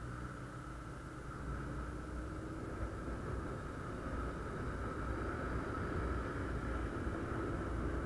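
TVS Apache RTR 180's single-cylinder four-stroke engine pulling as the motorcycle accelerates on the road, mixed with wind and road rush; the sound grows gradually louder as speed builds.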